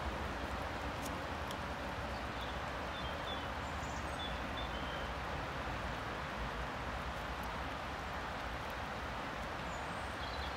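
Steady outdoor background noise, a wash of wind and distant traffic, with a few short bird chirps in the middle and again near the end.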